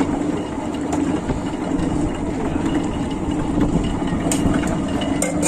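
Motor-driven sugarcane juice crusher running with a steady hum, its flywheel turning. A few light clicks come near the end.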